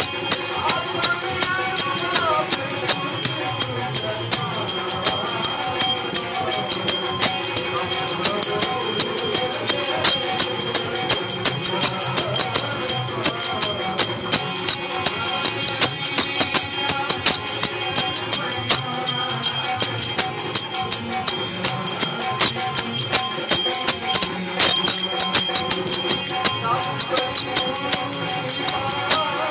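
Indian devotional music: manjira hand cymbals clinking in a fast, steady rhythm over a dholak barrel drum, with a held tone underneath. A voice sings near the start and again near the end.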